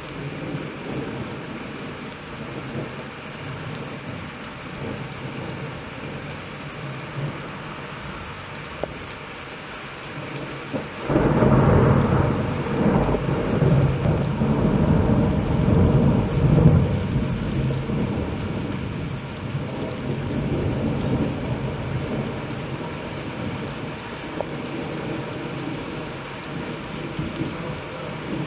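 Steady rain falling. About eleven seconds in, a loud thunderclap breaks and rumbles in surges for several seconds, then slowly rolls away under the rain.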